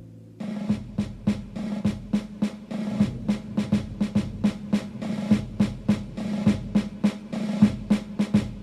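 Military-style snare drum cadence in the soundtrack: a steady marching beat with rolls between the strokes, starting about half a second in.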